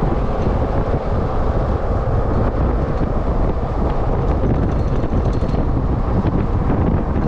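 Wind rushing over the microphone mixed with the steady road and engine noise of a Jeep driving.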